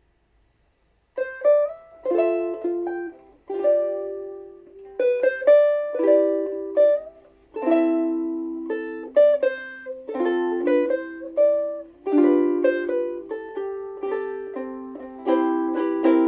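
Seilen SLVS-450s soprano ukulele, Sitka spruce top with Indian rosewood back and sides, played solo: after about a second of silence, a melody of plucked single notes and chords.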